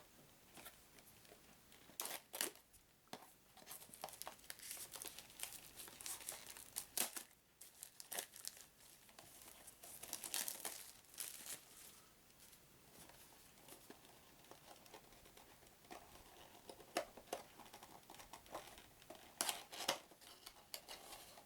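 Plastic wrapping crinkling and tearing as a small cardboard game box is opened by hand, in irregular bursts of sharp crackling with short pauses between.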